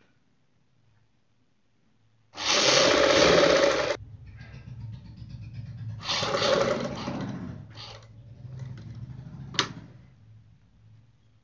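Sewing machine stitching a seam in stop-start runs: after about two quiet seconds a loud run of about a second and a half, a softer hum, a second run, a short spurt, and a sharp click near the end.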